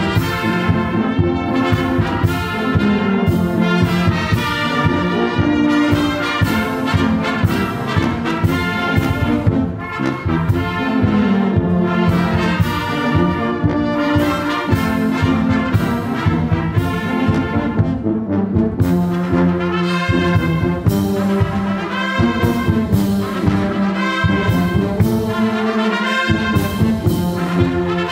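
A large church brass band playing a piece together: trumpets, trombones and a sousaphone, joined by saxophones and flutes, with the low brass carrying a strong bass line.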